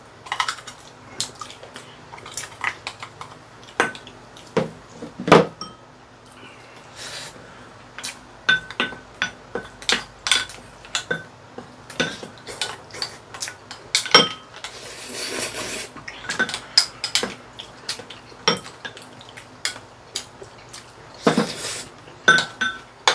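Chopsticks clicking and scraping against ceramic rice bowls as two people eat, in irregular clinks with a longer noisy scrape about fifteen seconds in.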